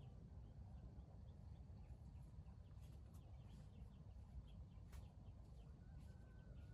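Near silence: a faint low rumble with scattered faint high bird chirps, one sharp click about five seconds in, and a faint drawn-out whistle near the end.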